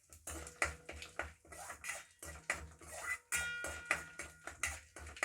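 A metal spoon stirring and scraping in an iron kadai during tempering, with a quick run of clinks and knocks. A brief metallic ring comes about three seconds in.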